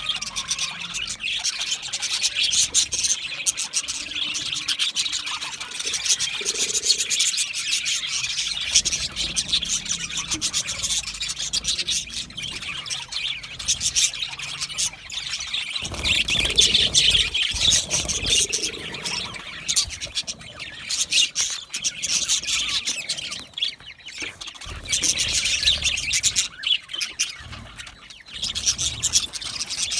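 Budgerigars chirping and chattering continuously, a dense stream of quick high-pitched warbles and chirps. A brief low rumble comes in about halfway through.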